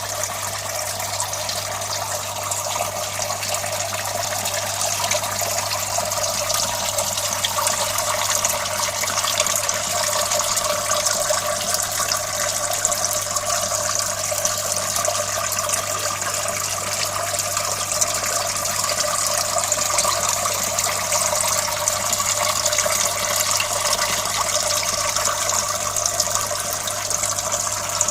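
Water running and splashing steadily in an ebb-and-flow (flood-and-drain) hydroponic system, with a steady low hum underneath.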